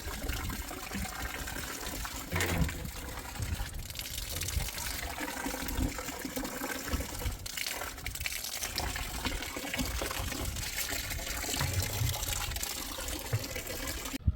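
Steady rush of water, an even noisy gush that cuts off abruptly near the end.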